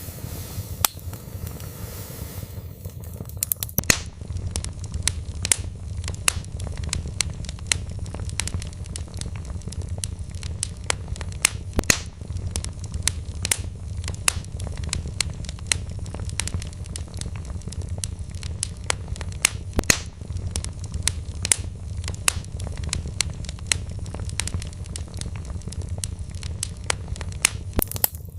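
Log fire in a fireplace crackling: frequent irregular snaps and pops of burning wood, a few of them louder, over a steady low rumble of the flames.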